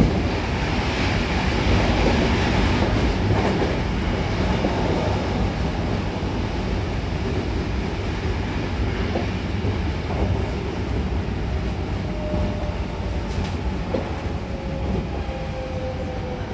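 Hankyu Kobe Line electric train heard from inside the passenger car, running and slowing into a station: steady rumble with wheels clicking over the rails, and a sharp knock right at the start. In the last few seconds a faint whine falls slowly in pitch as the train brakes.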